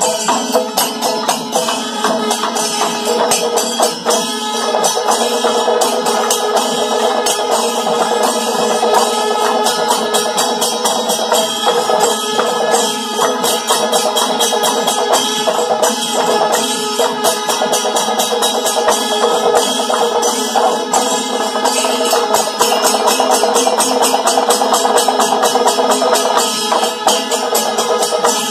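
Chendamelam ensemble: many chenda drums beaten with sticks in a dense, driving rhythm, with metallic jingling and ringing over the drumming, typical of the ilathalam hand cymbals that play in this ensemble.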